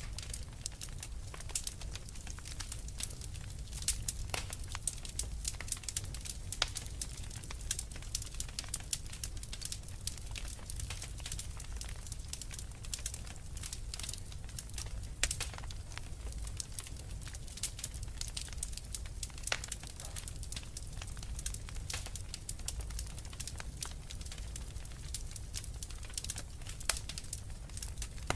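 Fireplace fire crackling: frequent, irregular sharp pops and snaps over a low, steady rumble.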